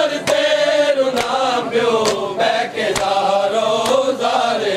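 Men chanting a mourning lament (noha) together, with sharp hand slaps on bare chests (matam) keeping a beat of about one stroke a second.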